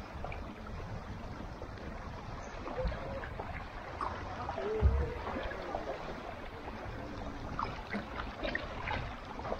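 Small waves lapping and trickling over the sandy shallows at a lake's edge, over a steady low rumble, with one low thump about five seconds in.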